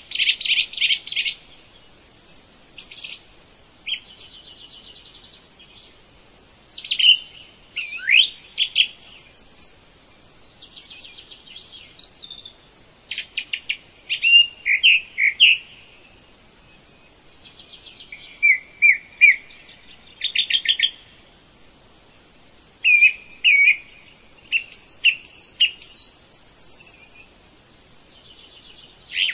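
Songbirds singing: short, varied phrases of high chirps, sweeping notes and rapid trills, with pauses of a second or two between them.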